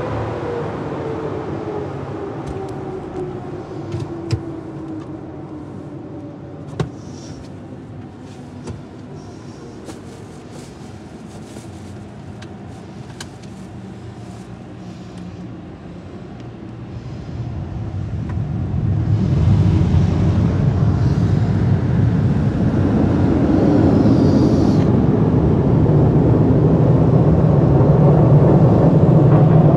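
Car wash blower winding down with a falling whine, then scattered sharp ticks like water drips on the car in a quieter stretch. About halfway through, a louder low rumble with a hiss builds up as the car drives out of the bay and keeps going.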